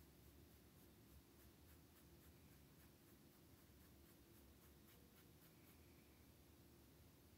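Faint, short, irregular scratches and dabs of a fine paintbrush on canvas, laying on acrylic paint, over a low steady room hum.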